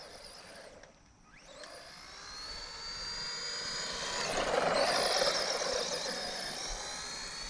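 Arrma Senton 4x4 Mega RC truck's electric 550 motor whining as it accelerates, the pitch climbing for a second or two and then holding, with tyre noise on the ground. It grows louder as the truck comes closer, peaks around the middle, then eases off.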